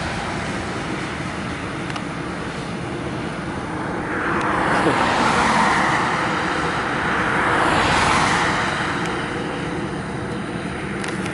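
Road traffic on a busy road: a steady rush of tyres and engines, with vehicles swelling past, loudest twice in the middle.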